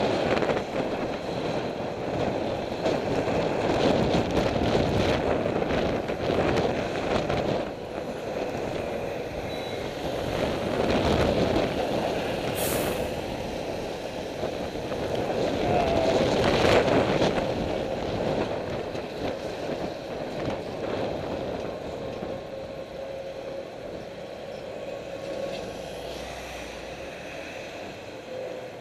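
Wind and road noise from a bicycle-mounted camera riding in city traffic. A large truck passes close alongside, and the noise swells at several points as vehicles go by, loudest a little past the middle.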